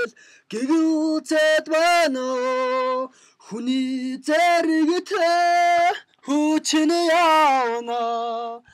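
A man singing unaccompanied in three long phrases, holding notes with vibrato, with short breaths between them.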